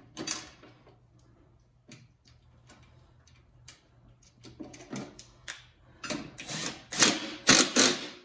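Metal hardware of a garage door opener rail being fitted together by hand: scattered light clicks and scrapes, then several loud rasping, ratchet-like strokes in the last two seconds.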